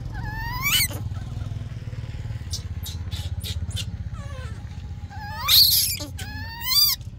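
Baby monkey screaming for milk: three shrill, rising cries, one about half a second in and two close together near the end. A steady low engine hum runs underneath.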